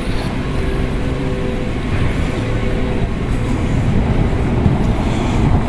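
City street traffic: vehicle engines running, a steady low rumble, with a hum from an idling engine that fades out about two seconds in.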